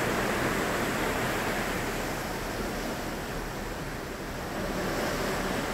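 Steady rushing noise of wind and sea heard from a sailing ship, easing a little past the middle and rising again near the end.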